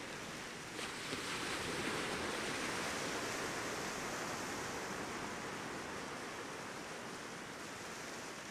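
Sea surf washing on the shore: a steady rush of water that swells about a second in and slowly eases back.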